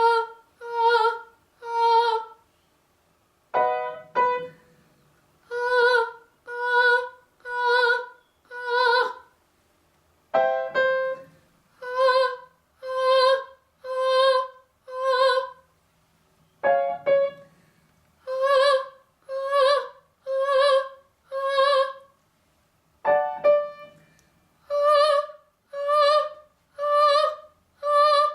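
Singing exercise with piano: a piano gives a cue note, then a singer sings four short detached notes on one pitch, about one a second. The pattern repeats four times, each round a step higher, in the daily 'fake cough' vocal drill.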